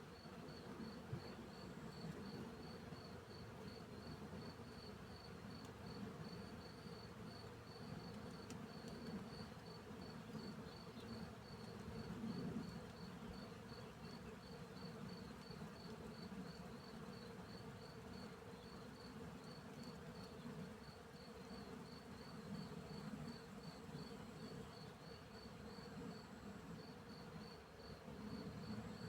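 Bees buzzing in flight, a low hum that swells and fades as they pass, over the steady high chirping of a cricket that repeats evenly throughout.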